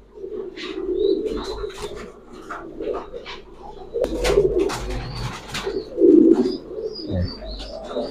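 Pigeons cooing in a loft, a low burbling coo that keeps going, loudest about six seconds in, with scattered sharp clicks and faint high chirps over it.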